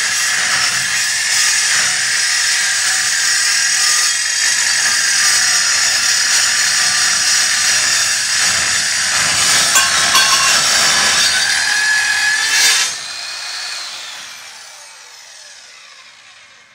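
Evolution Steel Saw 1 metal-cutting circular saw cutting through about 5/16-inch steel plate: a loud, high-pitched cutting noise, the blade pinching in the cut because the saw is not held straight. About 13 seconds in the cut ends abruptly and the motor winds down, its whine falling and fading.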